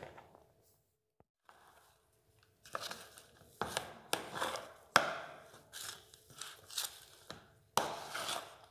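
Metal spoon scraping and knocking against a plastic bowl while stirring flour and boiled water into a stiff dough. There is a knock at the start, then near silence, then a run of irregular scrapes and knocks from a little under three seconds in.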